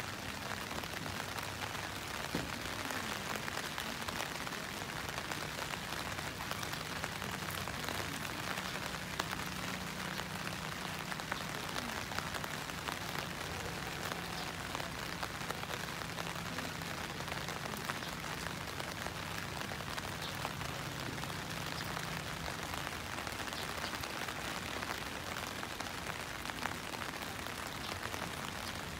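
Steady rain pattering, a dense hiss of fine drop ticks, with a faint low hum underneath for much of it.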